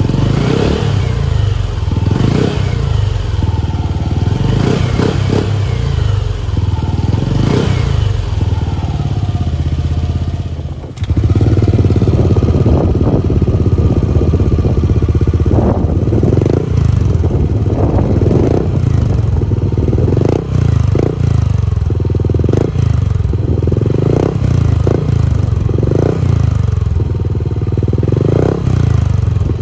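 Yamaha Aerox 155 scooter's single-cylinder engine revved again and again in short blips through its aftermarket exhaust, each rev rising and falling back toward idle. There is a brief break about eleven seconds in, where the recording cuts, before the blipping resumes.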